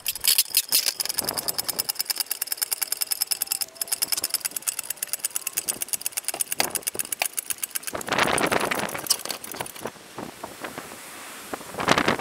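Engine hoist lifting a 1,300 lb steel keel: a fast, even clicking from the lifting gear for about eight seconds, then a louder, rough scraping of steel as the heavy keel shifts, with another burst near the end.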